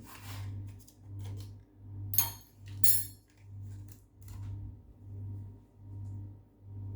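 A metal spoon clinking and tapping against a pot or bowl as pastry-cream powder is spooned into the milk mixture, with the sharpest clinks about two and three seconds in. Under it runs a low hum that swells and fades a little more than once a second.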